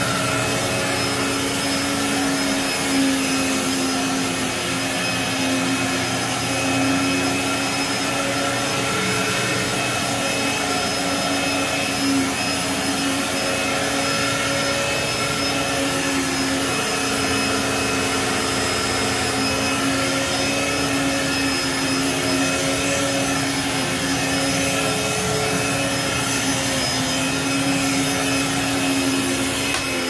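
Bagless upright vacuum cleaner running steadily, a constant motor whine over the rush of air.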